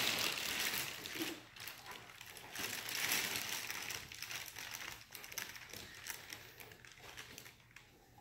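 Rustling, crinkling wrapping paper, loudest in the first second and again around three seconds in, then fading.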